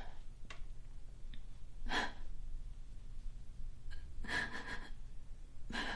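A woman's heavy breaths and gasps, three of them a couple of seconds apart, over a low steady room hum.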